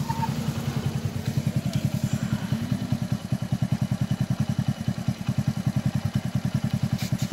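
Royal Enfield Bullet's single-cylinder engine idling with a steady, rapid, even thumping beat.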